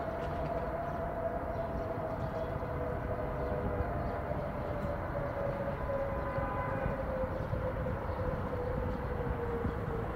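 Civil defence air raid siren winding down, its single tone slowly falling in pitch, over a steady background rumble.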